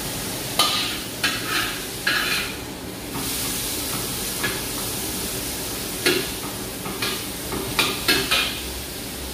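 Metal spatula scraping and clanking against a wok while vegetables are stir-fried, over steady sizzling. About ten sharp scrapes, several in the first two seconds and a cluster in the last three.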